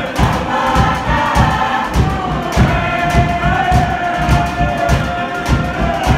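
A large group of voices singing together in long held notes, over a fast, steady beat of low thumps.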